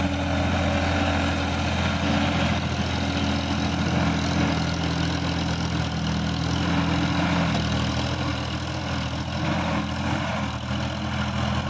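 Sonalika DI-50 RX tractor's diesel engine running steadily under load while driving a rotary tiller through dry soil.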